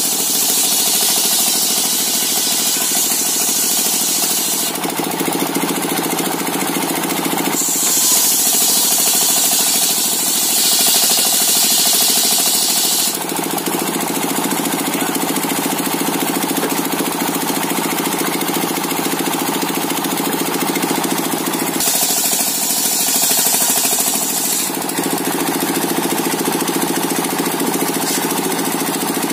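Circular sawmill (serkel) running continuously while sawing coconut wood. A loud, steady machine drone has stretches of stronger high hiss that come and go every few seconds as the cut changes.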